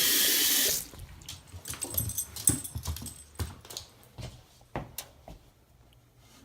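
Water running from a tap, shut off abruptly under a second in, followed by scattered light clicks and knocks.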